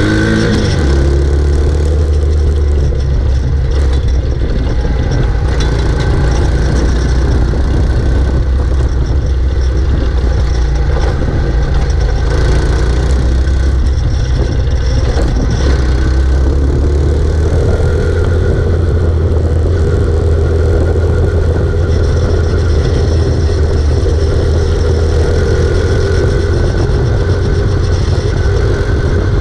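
125 cc quad bike engines running under way, a steady engine drone with a brief shift in pitch about a second in.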